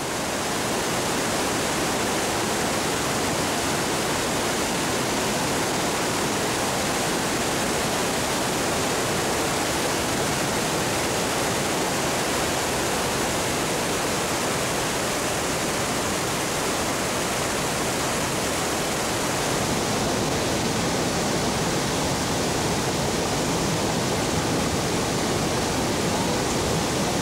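Barton Creek in flood: floodwater rushing steadily through rapids and over the dam, a constant wash of whitewater noise.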